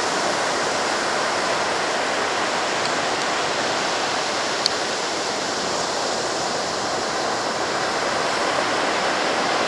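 Ocean surf breaking on the shore, a steady rushing wash of waves. A single sharp click stands out about four and a half seconds in.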